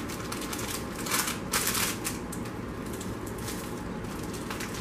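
Metallized Cheez Doodles snack bag crinkling as it is rolled up tightly by hand around the softened noodle and cheese-curl mix, with two louder crinkles a little over a second in.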